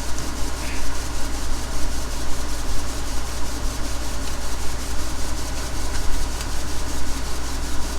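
Tractor and PTO-driven grain bagger running steadily: a low engine drone with an even rushing noise over it.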